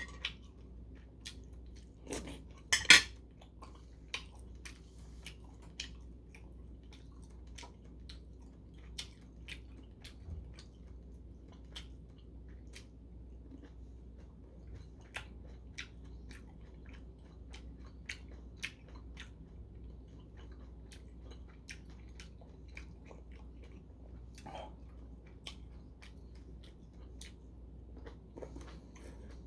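Close-up eating sounds: a metal spoon clinks sharply against a porcelain soup bowl a few times about two to three seconds in, then soft chewing of rice cakes and dumplings with small mouth clicks.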